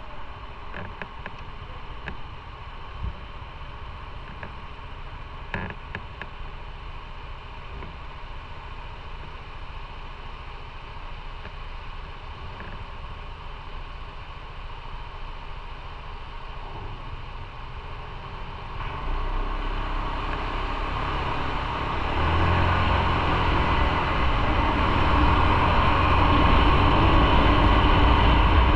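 Motorcycle running on the road at a low, steady level, then growing louder about two-thirds of the way in as it picks up speed, its low engine rumble and a rushing noise both rising.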